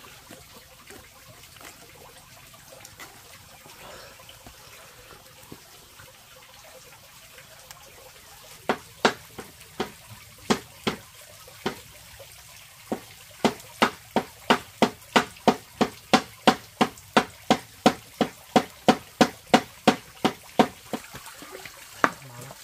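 Faint trickling water, then from about nine seconds in a run of sharp knocks, irregular at first and then steady at between two and three a second.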